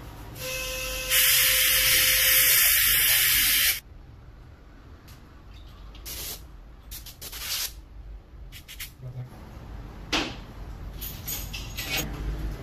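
Dental air syringe blowing a loud hiss of compressed air onto the teeth for nearly three seconds, then cutting off. After it come scattered short clicks and scrapes of dental instruments.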